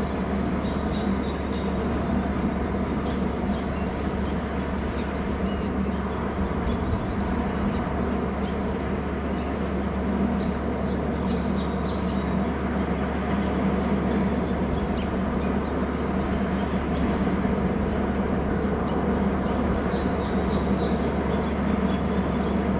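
Bald eagles calling in short, high-pitched chittering notes, faint and on and off, over a steady low rumble of background noise.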